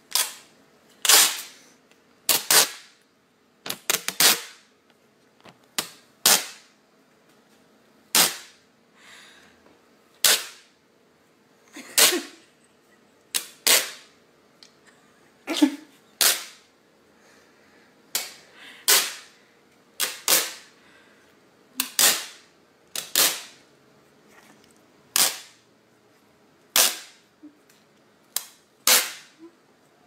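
Scotch tape being torn off its roll in short, sharp rips, about twenty of them, one every second or two.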